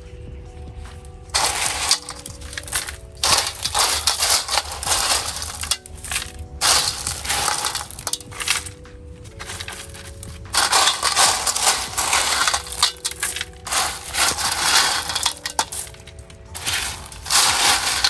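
Gravel being scooped by gloved hands from a metal bowl and packed into a clay pot, crunching and rattling in repeated bursts of a second or two.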